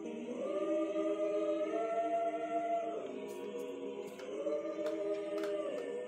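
Background music of a choir singing long held chords that change pitch a few times.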